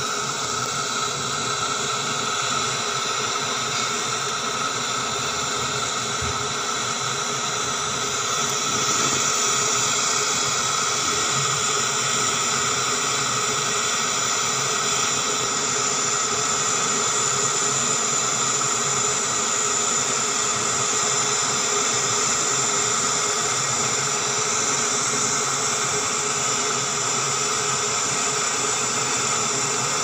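Gas torch burning with a steady hissing rush as it melts aluminium filler wire onto a refrigerator's freezer evaporator plate, patching a leak where the plate was punctured. It gets a little louder about nine seconds in.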